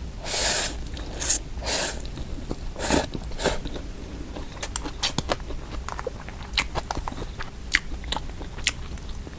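Close-miked eating of dry-mixed instant noodles: a few louder mouthfuls in the first four seconds, then steady chewing with many small sharp mouth clicks.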